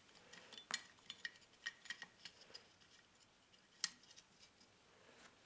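Faint small metal clicks and clinks of little nuts and washers being threaded by hand onto the studs of a chainsaw muffler, with two sharper clicks, about a second in and near four seconds in.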